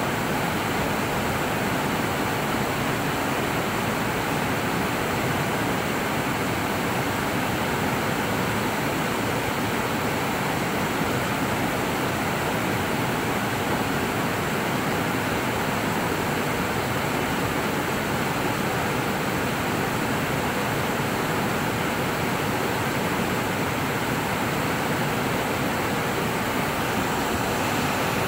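Creek water pouring over a wide, stepped rock-ledge waterfall and rushing through the whitewater below, a steady, even rush.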